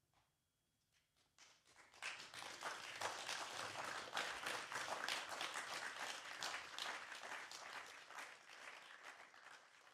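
Audience applauding, starting after a short silence about a second and a half in, building quickly to a full round of clapping and thinning out toward the end.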